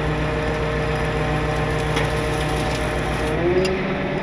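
Wrecker tow truck's engine running steadily at a constant speed while it drives the boom hydraulics.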